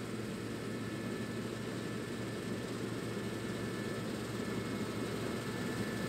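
Claas Lexion combine harvester running while cutting wheat: a steady engine and threshing drone with a faint high whine. It grows slightly louder as the machine comes closer.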